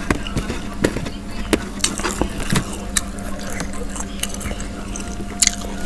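Close-miked eating of fried chicken: scattered crisp crunches and wet mouth clicks while chewing, over a steady low hum.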